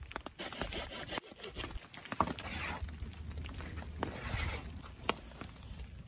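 Dry straw kindling catching and burning, with scattered sharp crackles and snaps over a low rumble.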